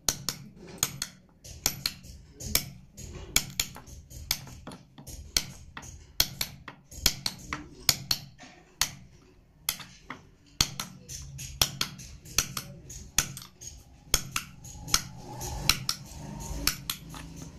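Hand wood-carving chisel being struck into a wooden board, sharp irregular taps a few times a second, often in quick pairs.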